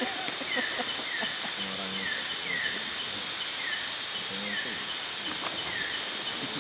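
Tropical forest insects shrilling steadily in a high-pitched chorus, with a short falling chirp repeating about twice a second.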